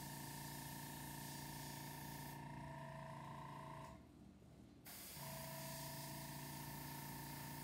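Airbrush hissing as it sprays paint, over the steady hum of its small air compressor. Both cut out for about a second a little past halfway, then resume.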